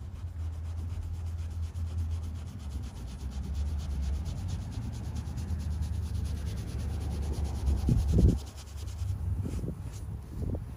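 Soft-bristled detail brush scrubbing a soapy fabric hood liner: steady, rapid rubbing strokes, with one brief louder thump about eight seconds in.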